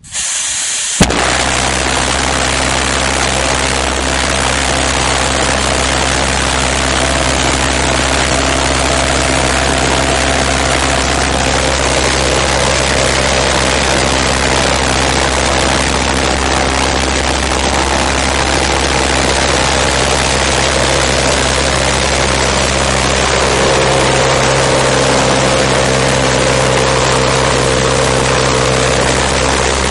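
Large twin-tube valveless pulsejet engine starting: a brief hiss, then it lights with a sharp bang about a second in and runs with a loud, steady, low drone. It is running hot, close to full thrust.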